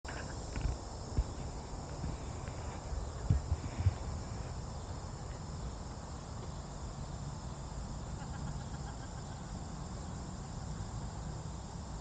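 Outdoor summer ambience: a steady, high insect chorus with a low rumble on the microphone, and a few soft thumps in the first four seconds.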